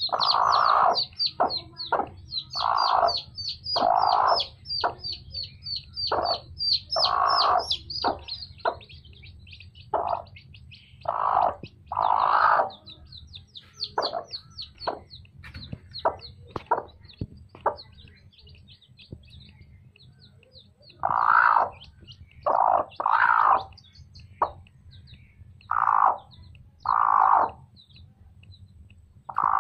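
Chicks peeping in quick, high chirps, densest over the first several seconds, while a broody mother hen gives repeated short clucking calls in between.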